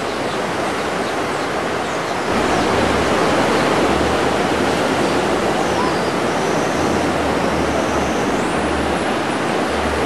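Ocean surf: a steady rush of breaking waves.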